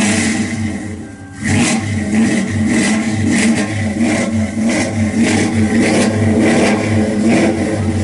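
1971 Dodge Dart's V8 engine running and being revved, rising in short, even surges about every half second, with a brief drop in level about a second in.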